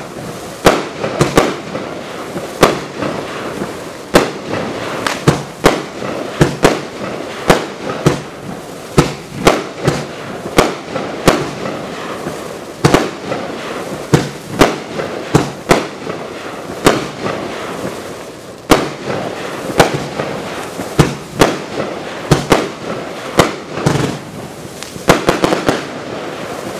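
Pyrogiochi 'Pioggia di Rubini' firework cake firing: a rapid, uneven series of sharp shots and bursts, about one to two a second, over a continuous hiss, stopping near the end.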